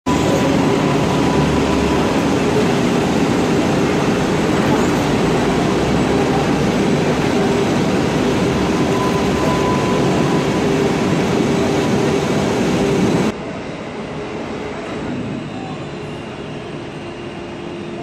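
A large cable laying-up machine running, its rotating bobbin cage giving a loud, steady mechanical rumble with a few faint steady tones. About thirteen seconds in the sound drops suddenly and continues quieter.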